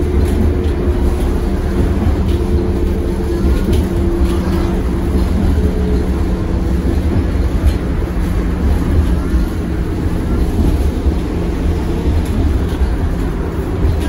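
Tatra KT4D articulated tram running, heard from inside: a steady low rumble with humming tones that shift in pitch as it moves.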